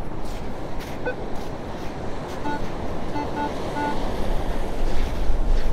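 Minelab Equinox 800 metal detector sounding several short, buzzy beeps on one pitch about halfway through as the coil passes over a buried target, over the steady hiss of surf and wind.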